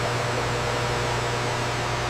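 Steady machinery hum with an even hiss over it, a low drone and a few faint steady tones, unchanging throughout.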